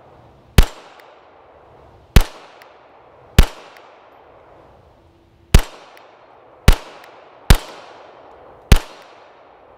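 Canik TP9 DA 9mm pistol fired seven times at an uneven pace of aimed shots, each a sharp crack with a brief ringing tail.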